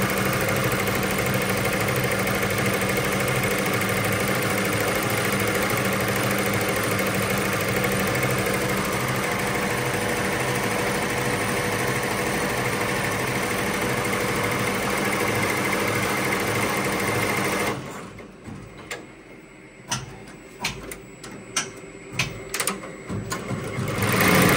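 ZSK multi-head commercial embroidery machine stitching at speed, a steady fast rattle of the needles. About eighteen seconds in it drops away suddenly to a quieter stretch of sharp clicks, then starts up again near the end.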